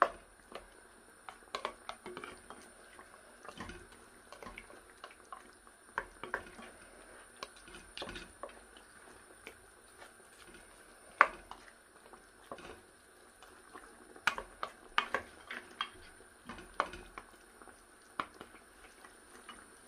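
Spatula knocking and scraping against a stainless steel pot while stirring pork hocks in sauce: irregular clicks and knocks, the loudest about eleven seconds in, over the faint bubbling of the simmering sauce.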